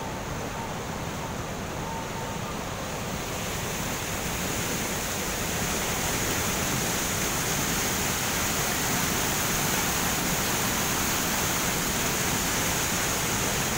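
Steady rush of water pouring over a small weir in a canal, louder from about five seconds in.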